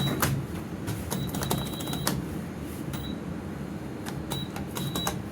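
Lift control buttons being pressed repeatedly: a string of sharp clicks with short high-pitched beeps, over a steady low hum.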